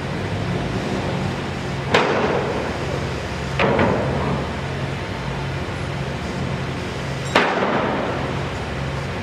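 Construction site sound: a steady engine drone with a pulsing low hum, broken by three sharp knocks with a short ring-out, about two seconds in, a doubled one near the middle, and one near the end.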